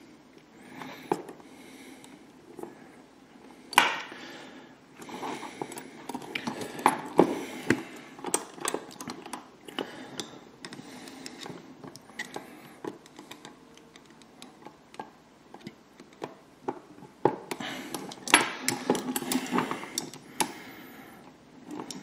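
Hands fitting small screws and plastic parts onto a scale model car's rear suspension: scattered light clicks, taps and rattles with soft rustling, a sharper click about four seconds in and a busier run of clicks and rustling near the end.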